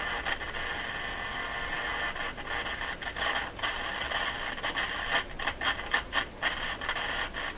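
Sharp transistor radio's speaker on the AM band, giving a steady hiss of static. About five seconds in, the sound breaks up into a run of quick crackles and dropouts as the dial is turned, which the repairer puts down to a scratchy tuning capacitor.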